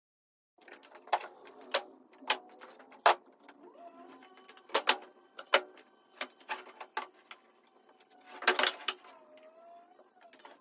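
Irregular sharp wooden knocks and clatters of pine boards and plywood being handled and set down on the saw table, the loudest rattle about three-quarters through.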